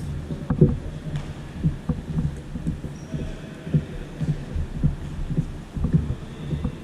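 Irregular dull thumps of a futsal ball being kicked and bouncing, with footsteps on a sports-hall floor, over a steady low hum.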